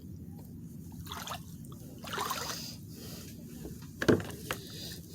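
Kayak paddle strokes: water swishing and dripping off the blade, with a sharp knock about four seconds in.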